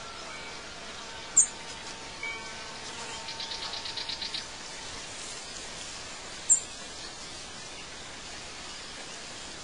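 Songbirds calling over a steady outdoor background hiss: two sharp, high single chirps and, in the middle, a rapid trill of about ten notes a second.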